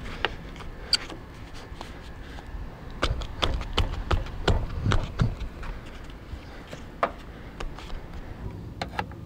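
Rubber door weatherstripping being pressed and tapped by hand onto the body flange around the door opening of a 1995 GMC Suburban: a run of irregular soft thumps and clicks, busiest between about three and five and a half seconds in.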